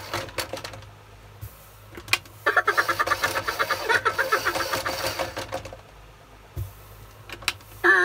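Animated Minion toy's small electric motor and plastic gears whirring in rapid pulses as it waves its arms, loudest from about two and a half seconds in and fading a few seconds later, with a few clicks before it and a low thump near the end.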